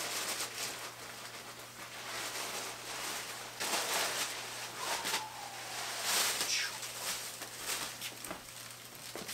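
Clear plastic poly bag crinkling and rustling as a hockey jersey is pulled out of it, in several bursts.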